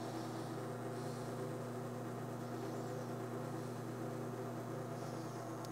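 La Marzocco Linea Mini espresso machine's pump running during a shot extraction, a steady low hum, with a single short click just before the end.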